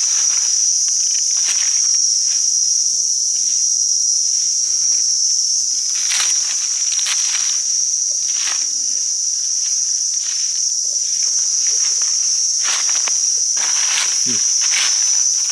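A steady, shrill insect chorus sounds without a break, with scattered rustles and crackles of forest leaf litter now and then.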